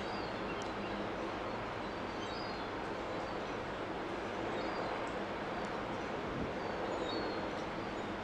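Steady low hum and rumble of a container port, with a few short, high bird chirps scattered over it.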